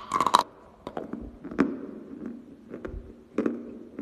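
A bite into a lump of dry edible clay: a sharp crackling crunch in the first half-second, then mouth-closed chewing with scattered crunches.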